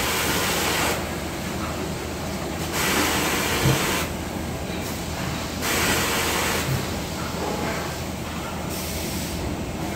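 Factory-floor machinery noise: a steady low hum under a hissing rush that swells for about a second roughly every three seconds, with a couple of short knocks.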